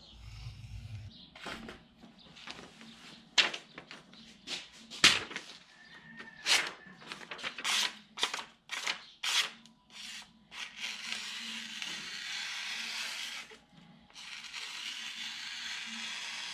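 A freshly stropped knife blade slicing through a sheet of paper: two steady slicing sounds of about three seconds each in the second half, with a short break between them. These follow a string of sharp clicks and paper crinkles from handling.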